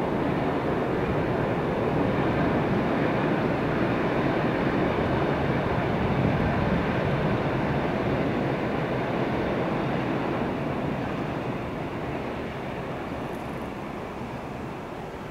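Distant heritage train of diesel-electric locomotives and carriages crossing a viaduct: a steady rumble that fades gradually over the last few seconds as the train draws away.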